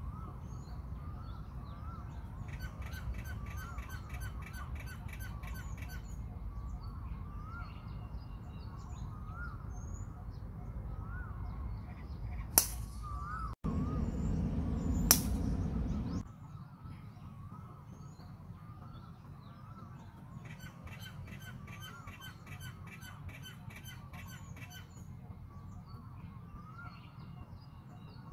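Two sharp cracks of a golf driver striking the ball off the tee, about two and a half seconds apart, the loudest sounds here. Birds call throughout with repeated short rising notes and bursts of fast chirping.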